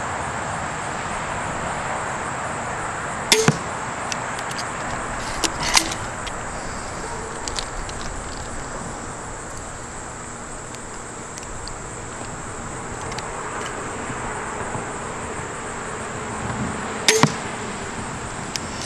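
80 lb pistol crossbow fired twice, about fourteen seconds apart: each shot is a sharp snap of the string, quickly followed by a second hit as the bolt strikes the target. Between the shots come a few fainter clicks as it is recocked and loaded.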